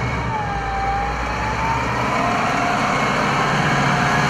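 SDLG wheel loader's diesel engine running steadily, with a thin whine that drifts slowly up and down in pitch over the engine rumble.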